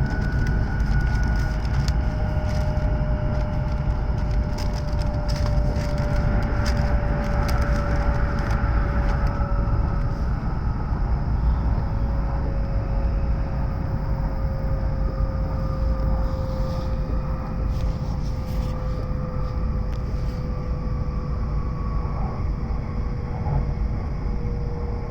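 Running noise of an E7-series Shinkansen heard inside the passenger car: a steady low rumble with a thin whine that falls slowly in pitch.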